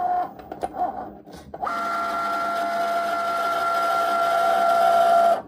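Cricut Maker cutting machine's motors running as it cuts heat transfer vinyl on its mat. There are short stop-start whirs at first, then a steady whine for about four seconds that cuts off abruptly near the end.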